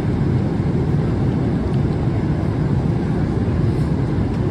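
Steady low rumble of an airplane heard from inside the cabin: engine and air noise, with no change.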